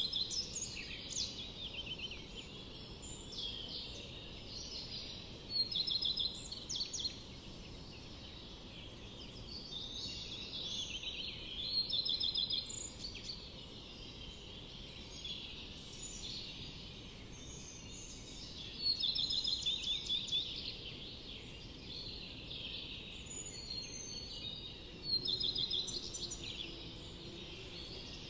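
Forest birdsong: one bird repeats a loud song phrase ending in a rapid trill about every six seconds, over a steady chorus of softer calls from other birds.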